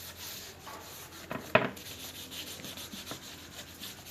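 Cloth rubbing back and forth over dried paint to bring out a flake effect, in a run of short strokes. A sharp knock comes about one and a half seconds in.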